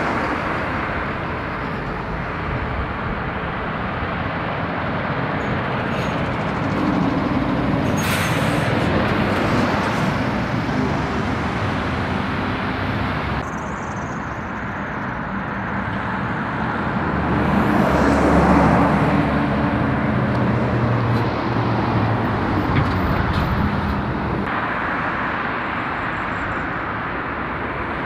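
Road traffic passing on a dual carriageway: a steady rush of tyres with lorry and car engines swelling as they go by, loudest about two-thirds of the way through.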